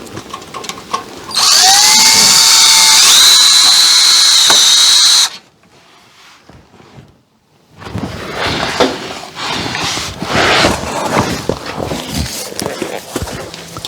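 Power drill driving a screw into a 2x4 floor joist: the motor spins up, runs for about four seconds with its pitch stepping up partway, then stops. Irregular knocks and rustling follow.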